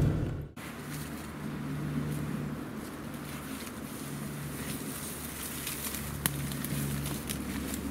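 Dry reed stalks rustling and crackling with scattered small snaps as a person pushes through them on foot.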